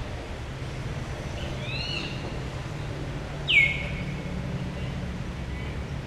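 High-pitched animal calls: two faint rising chirps, then about three and a half seconds in one loud call that drops sharply in pitch and holds for under a second, over a steady low rumble.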